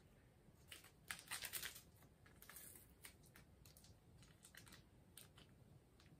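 Faint crinkling and small ticks of a paper instant-coffee stick packet being torn open and handled, with a denser half-second of crinkling about a second in.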